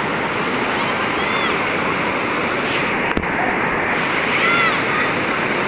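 Steady rush of river water pouring and churning over a low concrete weir.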